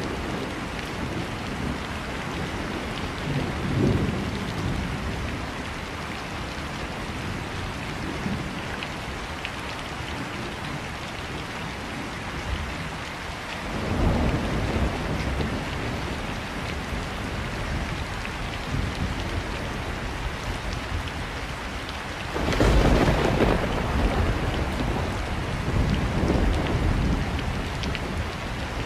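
Heavy rain falling on a city street, a steady hiss, with several louder low rumbling swells: one about four seconds in, one about fourteen seconds in, and the loudest and longest about twenty-three seconds in.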